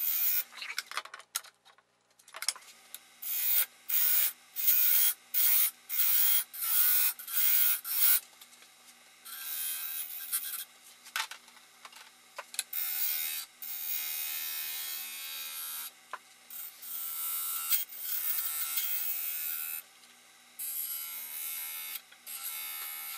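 Wood lathe motor humming steadily while a turning tool is pressed into the spinning wood to take material off. First comes a quick run of short scraping cuts, about one or two a second, then longer continuous cuts from about ten seconds in.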